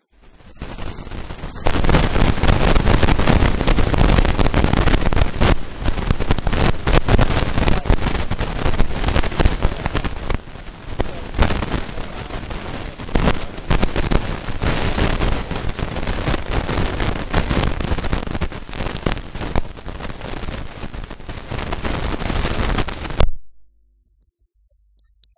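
Loud, harsh crackling noise covering every pitch and drowning out everything else. It starts right away and cuts off suddenly about 23 seconds in.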